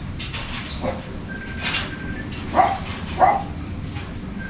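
A dog barking twice, about half a second apart, over a steady low background rumble.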